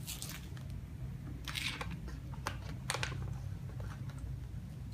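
Plastic spoon scraping and clicking inside a foil MRE pouch of pound cake, the pouch crinkling now and then: a handful of short scrapes and clicks over a low steady room hum.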